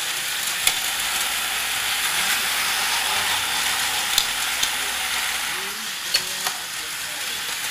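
Small plastic clicks and clacks from a Tyco US-1 toy trucking set's log loader as it tips plastic logs into a red toy dump truck, two of them close together about four seconds in. A steady hiss runs underneath.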